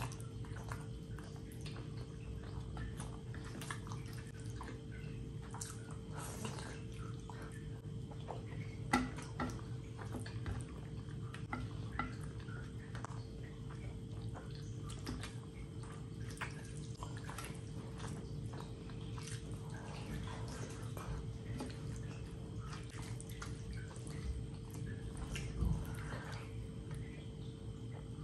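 Close-up wet eating sounds from eating with the hand: fingers squishing rice and curry, sticky smacking and chewing, made up of many small wet clicks, two of them louder, about nine seconds in and near the end. A steady low hum sits under it all.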